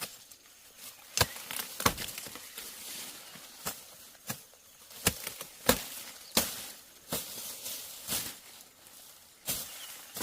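Irregular sharp knocks and crunches, about a dozen, one every half second to second, over a faint steady high hiss.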